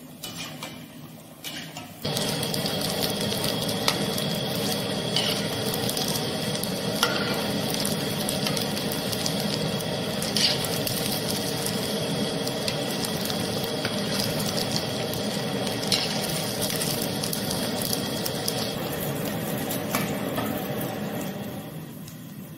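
Oil sizzling steadily as noodle-coated potato rolls deep-fry in a kadhai, with a few light clicks of a metal slotted spoon against the pan. The sizzling starts abruptly about two seconds in and dies down near the end.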